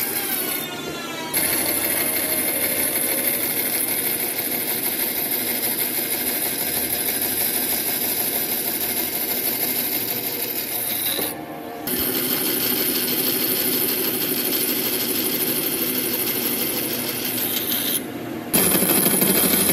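Bandsaw running and cutting into a thick wooden slab, a steady high whine over the rasp of the blade in the wood. The sound dips briefly three times, near the start, about midway and near the end.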